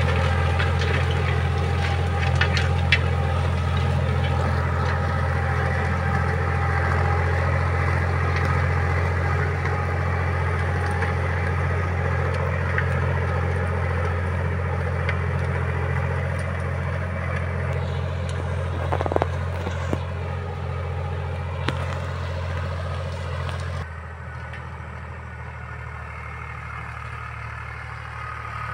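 YTO-X454 tractor's diesel engine running steadily under load while pulling a trailing disc harrow through the soil, with a few sharp clicks from the harrow. About five seconds before the end the engine sound drops suddenly in level.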